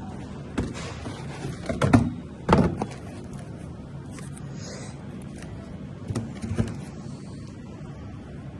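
Fireworks going off: a few irregular sharp bangs, clustered about two seconds in and again near six and a half seconds, over a steady low rumble.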